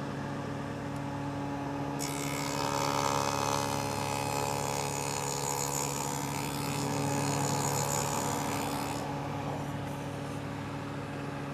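Table saw fitted with a stacked dado blade running with a steady motor hum. About two seconds in, a wooden board is pushed through the blade with the miter guide, and the dado stack cuts a groove, adding a loud, rough cutting noise for about seven seconds. After that the saw runs free again.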